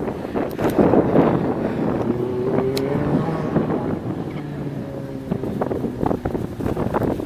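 Wind buffeting the microphone in gusts over the Lamborghini Gallardo Spyder's V10 engine running, whose note rises slightly a couple of seconds in.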